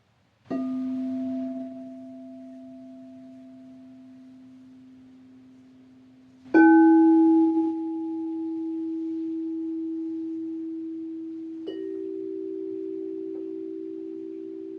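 Crystal singing bowls struck one after another, three strikes about five to six seconds apart. Each bowl rings on in a long sustained tone, each a little higher in pitch than the last. The later tones ring together with a slow wavering beat.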